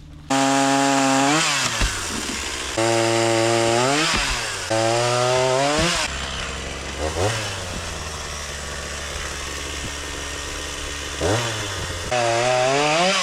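Gas chainsaw engine revved high in several bursts of a second or two, falling back between them, then running lower for about five seconds with a couple of brief blips before revving high again near the end.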